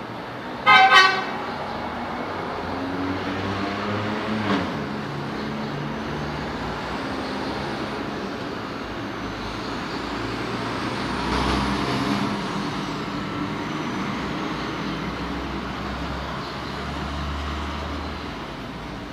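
City street traffic: a vehicle horn toots once, briefly, about a second in, the loudest sound, and engines pass steadily for the rest of the time.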